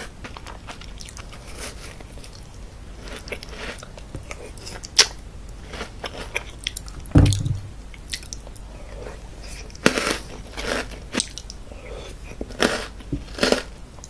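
Close-miked eating of chocolate snacks: chewing with scattered sharp, crunchy bites, thickest in the last few seconds. About seven seconds in there is a single louder, dull thump.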